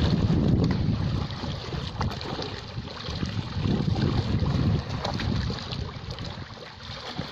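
Sea waves washing in, with wind rumbling on the microphone in gusts. The surges ease off about five seconds in.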